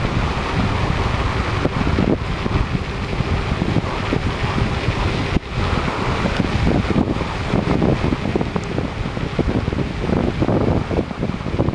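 Wind buffeting the microphone of a moving vehicle, over a steady low rumble of road and engine noise as it drives along.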